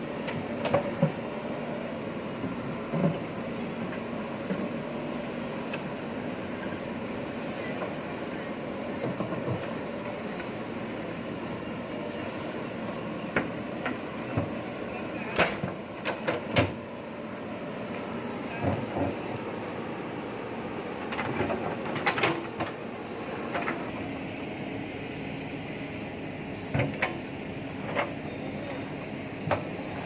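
JCB backhoe loader's diesel engine running steadily as the machine drives and manoeuvres, with a series of sharp knocks and clanks from the machine, mostly in the second half.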